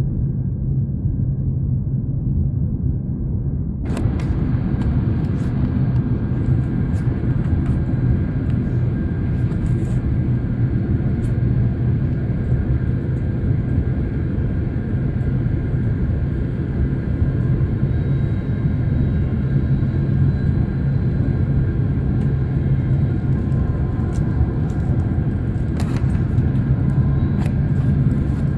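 Airliner cabin noise in flight: a steady low rumble of engines and airflow, with a few faint clicks and rattles.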